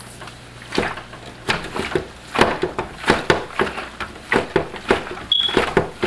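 Hand-cranked Wonder Clean laundry drum being turned with clothes and water inside, giving irregular knocks and thuds about twice a second as the plastic drum and its stand rock on the table. There is one brief squeak a little past five seconds in.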